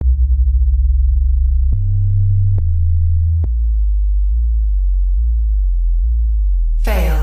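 Subsonic bass test tones from an audio test sequence: deep, steady sine tones that step to a new pitch with a click about 1.7, 2.6 and 3.4 seconds in. After that they pulse between two low pitches.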